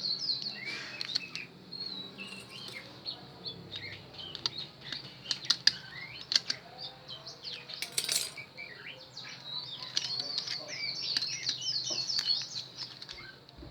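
Small birds chirping over and over in quick, high twittering notes, with scattered light clicks and taps of small metal handling, one sharper click about eight seconds in.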